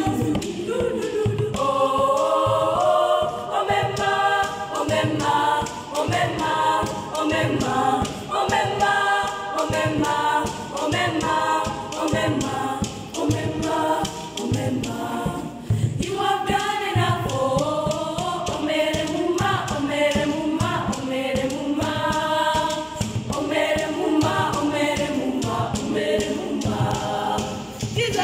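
Girls' choir singing in several-part harmony, the voices gliding together in sung phrases, with a light rhythmic tapping underneath.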